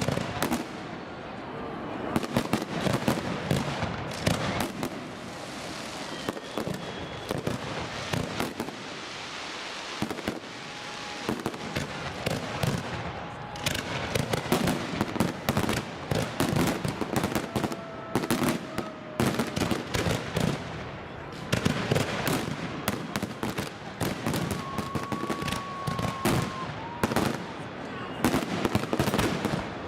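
Fireworks display: aerial shells bursting in rapid, dense strings of bangs and crackles, coming in waves with short lulls between.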